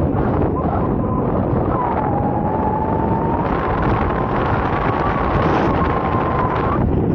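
Wind buffeting the microphone in flight: a heavy, steady rush. A thin high tone wavers through most of it and stops shortly before the end.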